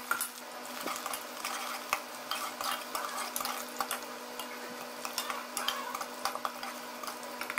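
Sliced onions frying in oil in a metal pressure cooker, stirred with a metal spoon that scrapes and clicks against the pot over a soft sizzle.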